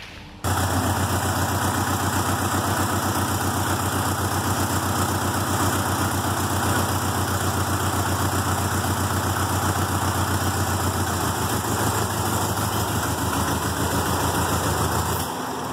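Farmall 300 Utility tractor engine running steadily with an even pulsing beat. It cuts in abruptly, already running, about half a second in.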